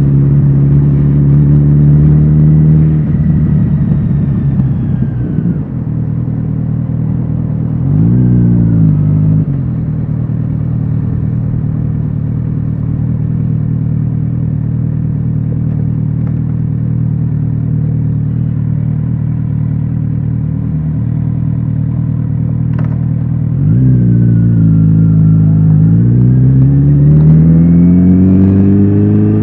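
Kawasaki Z900RS inline-four motorcycle engine and exhaust, heard from the rider's seat. It runs steadily, eases off about three seconds in, gives a short blip of revs about eight seconds in, then holds a low steady note for over ten seconds. Near the end it pulls away, the revs falling across a gear change and then climbing again.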